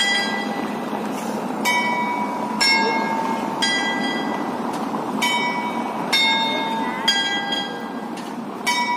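Small clock-tower bells struck by mechanical bell-striking figures (jacks) on the Zimmer Tower's clock, ringing the noon hour. There are about eight separate strikes roughly a second apart, each ringing on, over a steady background noise.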